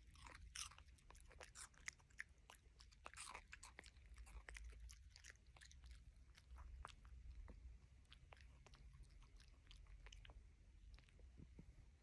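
Alaskan Klee Kai puppy chewing, a quiet run of irregular crunches and clicks.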